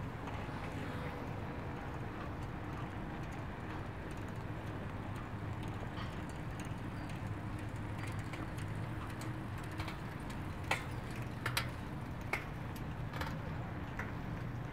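Steady low rumble of a bicycle rolling along a paved path. A few sharp, irregular clicks and rattles come in the last few seconds.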